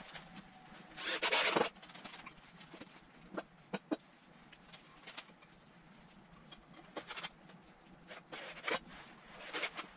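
A cordless drill driving construction screws into 2x4 and 2x6 pine lumber in short bursts. The loudest burst comes about a second in, with sharp clicks and knocks of the boards and tool being handled between them.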